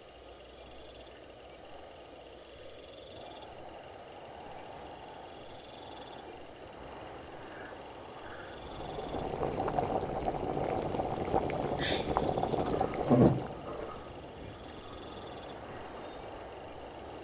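Steady, evenly repeating chirping of night insects. About nine seconds in, a louder rushing sound, like liquid being poured, runs for about four seconds and ends in one sharp knock.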